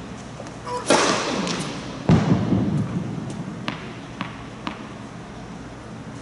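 Tennis serve: a sharp crack of racket striking ball about a second in, echoing in a large indoor tennis hall, then a heavier thud about a second later. Three light taps follow as a ball is bounced on the hard court before the next serve.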